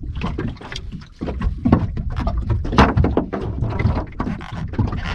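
Small waves slapping against a boat's hull, with wind rumbling on the microphone and many irregular small knocks.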